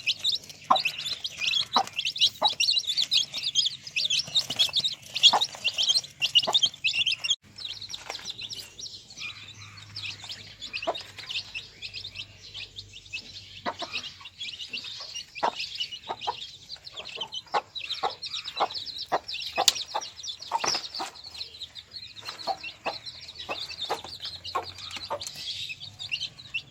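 A brood of desi chicks, about ten to twelve days old, peeping continuously in high chirps, thickest in the first seven seconds, with short sharp sounds scattered throughout.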